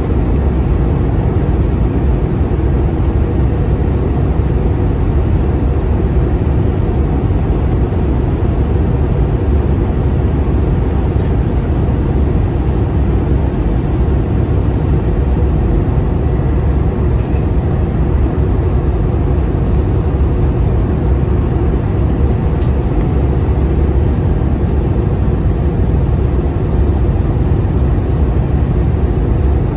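Steady cabin noise of an Airbus A320 descending through cloud: an even, deep rumble of the engines and the airflow over the fuselage.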